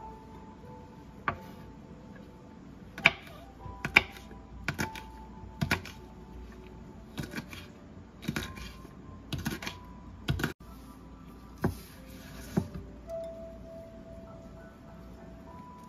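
Kitchen knife chopping fresh chili peppers on a wooden cutting board: about a dozen sharp knocks of the blade on the board at an uneven pace, roughly one a second.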